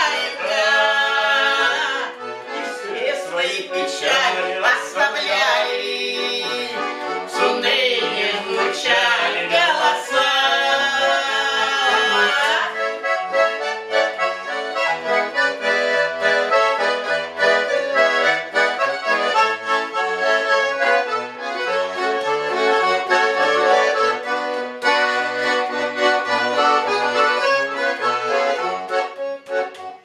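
Russian garmon (small button accordion) playing the instrumental break of a folk song: a melody over held chords and a regular bass.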